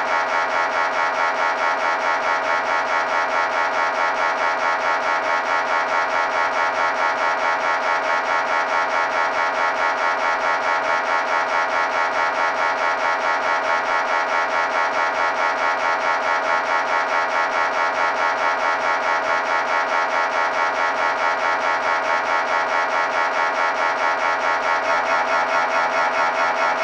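MRI scanner's gradient coils running a scan sequence: a loud, steady buzzing tone that pulses in a fast, even rhythm, growing slightly louder near the end.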